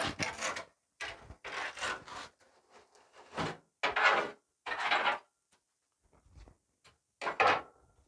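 Wood fire and glowing coals in a braai being poked and raked, in about six short scraping bursts.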